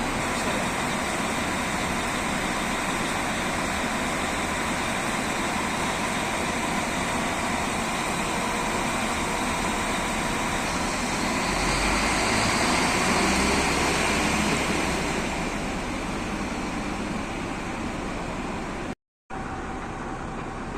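Regional train running, a steady rumble and rushing noise that swells for a few seconds about midway and then eases off. The sound cuts out for a moment near the end.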